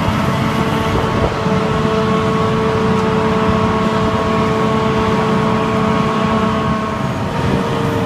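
John Deere self-propelled forage harvesters and tractors picking up silage together: a loud, steady drone of many diesel engines and machines running at once, with a held whine above it.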